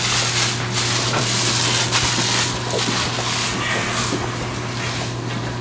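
Scraping and rubbing of a sword being handled, the steel blade sliding into its scabbard, over a steady low hum.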